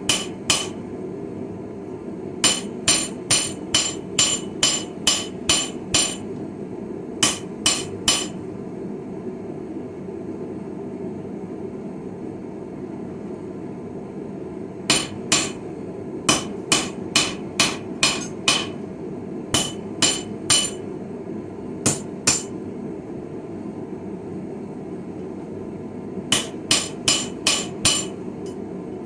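Hand hammer striking steel on a small Viking-style anvil while forging a chisel. The blows come in quick runs of about two or three a second, each with a bright ring, separated by pauses of a few seconds. A steady low rush runs underneath.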